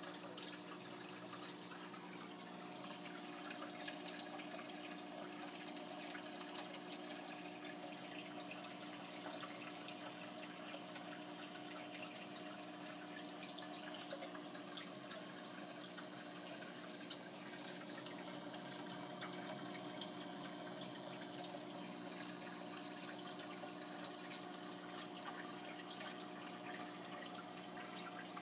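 Aquarium filter running: water trickling and splashing into the tank, with a steady hum and scattered small drips.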